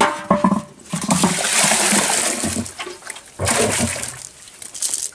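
Water splashing and pouring: a long rush of about two seconds, then a shorter splash.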